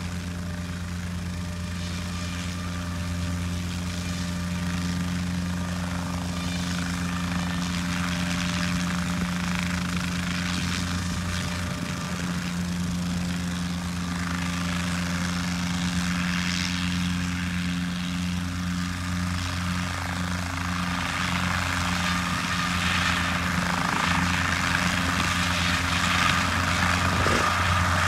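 Guimbal Cabri G2 helicopter running: its rotor and piston engine give a steady low drone that grows gradually louder and hissier through the last several seconds as it lifts off into a low hover.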